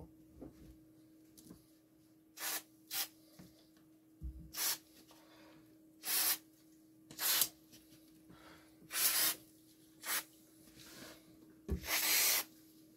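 Aerosol spray can with a straw nozzle, sprayed in about eight short hissing bursts a second or so apart; the last burst is the longest. A low knock sounds about four seconds in.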